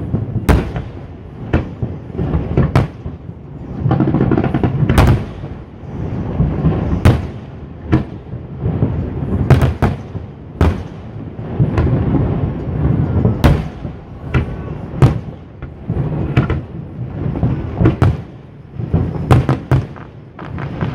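Aerial fireworks shells bursting in an irregular series of sharp bangs, about one or two a second, with a low rolling rumble between them.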